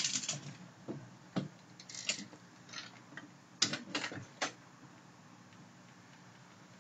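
Clicks and knocks of a front storm door being opened and closed, handle and latch working: a cluster at first, single knocks over the next two seconds, then a quick run of three knocks partway through.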